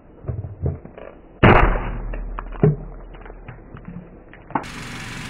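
Car tyre crushing green plastic cups: a loud crack about one and a half seconds in, a second sharp crack about a second later, and scattered small clicks and ticks of plastic fragments.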